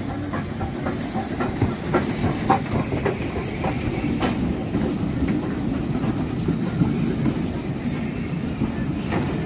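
Ivatt Class 2MT 2-6-2T steam tank locomotive and its train of carriages rolling slowly past: a steady rumble of wheels on rail with a hiss of steam. A run of sharp clicks comes about twice a second for the first four seconds or so, then the coaches carry on with a steady rumble.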